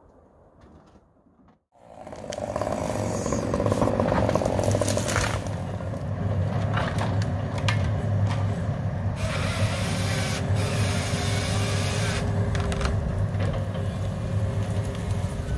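Tracked forestry machine with a tree-felling head at work: its diesel engine and hydraulics start up loud and steady about two seconds in, with a low hum and scattered sharp cracks and knocks.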